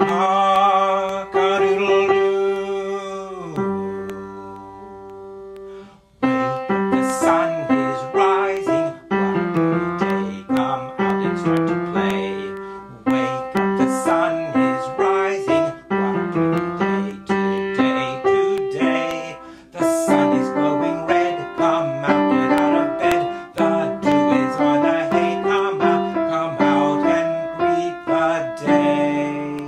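Upright piano playing a simple beginner's tune, a steady run of single-line melody notes over a low accompaniment. It opens with a long held sound that slides down in pitch about three seconds in and fades before the tune starts, and there is a short pause about two-thirds of the way through.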